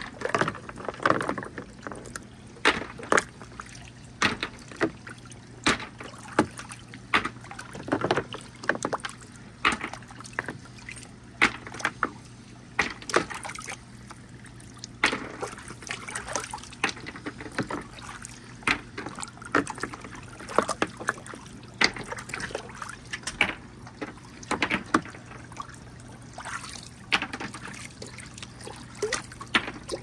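Marbles clacking and rolling down a marble run with water trickling through it: sharp clicks and knocks come irregularly, sometimes several in a second, over a steady running-water sound.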